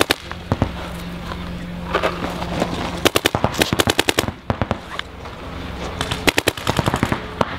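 Paintball markers firing rapid strings of shots, about eight a second: a volley of about ten shots some three seconds in, another volley near the end, and a couple of single shots at the start. A steady low hum runs underneath.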